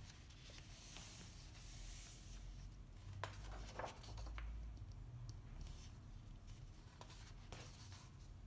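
Pages of a printed book being turned by hand. There is a faint hiss of paper sliding, then a page turning over with a few soft crackles and taps as the paper moves and settles.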